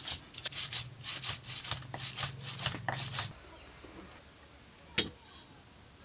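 Whole spice seeds being crushed in a stone mortar with a stone pestle: rhythmic gritty scraping and grinding strokes, about three a second, that stop suddenly about three seconds in. A single sharp click follows near the end.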